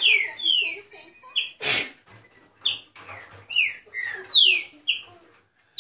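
Caged green-winged saltator (pixarro, trinca-ferro) singing a series of clear, downward-sliding whistled notes, two or three a second. A short loud knock-like noise comes about a second and a half in, then a brief lull before the song goes on.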